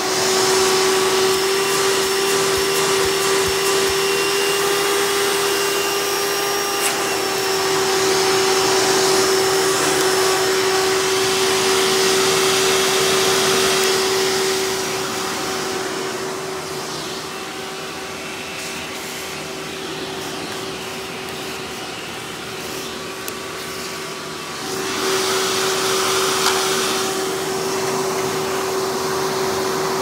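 Hoover Elite-style upright vacuum cleaner with a direct-air motor running steadily in tool mode, drawing air through its hose and wand on carpet: a steady motor whine over rushing air. It goes softer for about ten seconds midway, then louder again.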